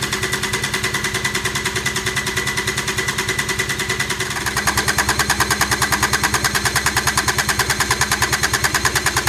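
Kubota D722 three-cylinder diesel cranked over by its electric starter without firing: a steady, rhythmic churn of compression strokes that gets louder about four and a half seconds in. The engine is turned over to build oil pressure before the injector pump has been bled, so it does not catch.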